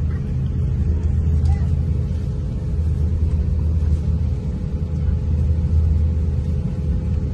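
Steady low rumble inside the cabin of an Airbus A350-900 on the ground, with a faint steady hum above it.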